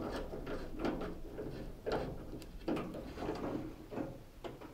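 A nut driver undoing the screws that hold a washing machine's plastic control panel, with handling of the panel: several light clicks and knocks, roughly a second apart.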